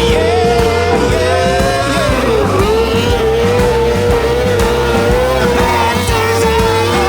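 Sprint car engine running at high revs around a dirt oval, a steady high-pitched note that dips briefly about two and a half seconds in as the driver lifts for a turn. Background rock music plays underneath.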